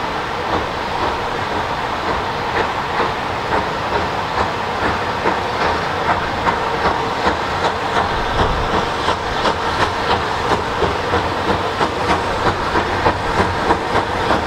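Bulleid Battle of Britain class three-cylinder 4-6-2 steam locomotive approaching under steam: a steady rumble with regular exhaust beats, about two a second, that grow louder and sharper as it nears.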